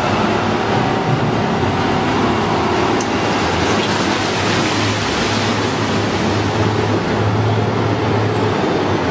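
Articulated dump truck's diesel engine running steadily while its raised body tips a load of ore rock, which slides and clatters out, the rush of rock heaviest about three to six seconds in.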